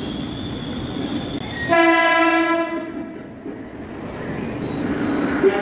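Suburban electric local train (EMU) sounds one steady horn note for about a second, a couple of seconds in. It rises over the rolling rumble of train wheels on the tracks, which dips after the horn and swells again near the end as the train draws in.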